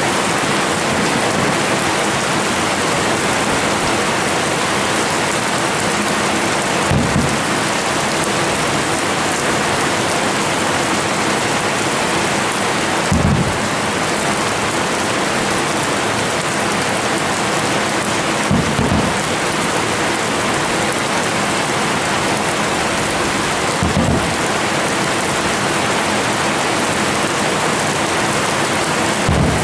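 Steady hiss of heavy rain, with five dull, low firework booms spaced about five seconds apart.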